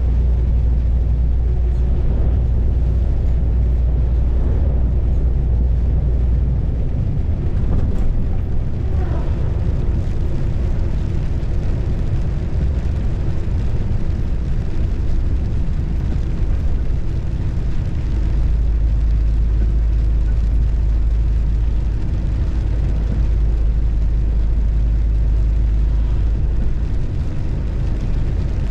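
Steady low rumble of a car moving along a road: road and wind noise, heaviest at the start and again in the latter half.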